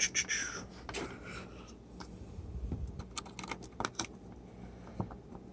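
Scattered small clicks and taps of a battery plug and plastic parts being handled as the battery connector is pushed back onto the speaker's circuit board.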